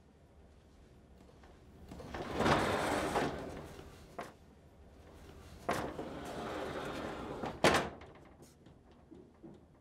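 Glass-paneled sliding entrance door rolling open along its track, with a small click, then slid shut again, ending in a sharp knock as it meets the frame.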